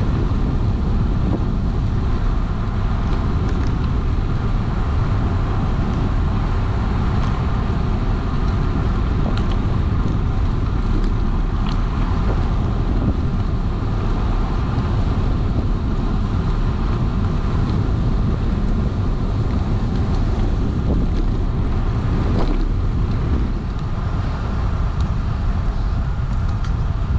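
Steady rush of wind buffeting the microphone of a camera riding on a moving bicycle, mixed with the rolling noise of the ride.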